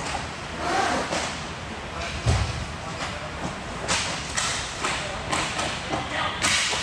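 Inline hockey play: a heavy thump about two seconds in, then a run of sharp clacks from sticks and the puck on the sport-court floor and boards. Players shout over it.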